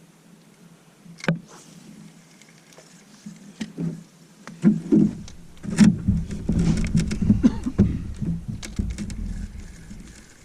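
Knocks and clatter of gear against a canoe's hull: a single sharp knock, then from about halfway a busy run of knocks over a low rumble.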